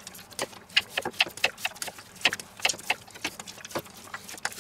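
Hands kneading stiff, sticky marzipan dough mixed with raisins and nuts in a stainless steel bowl. It gives irregular sticky smacks and clicks, about four or five a second, with light knocks against the bowl.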